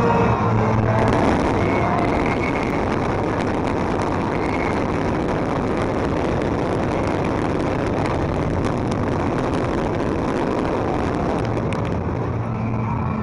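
Low-level firework fountains spraying sparks, making a steady dense hiss with fine crackling throughout.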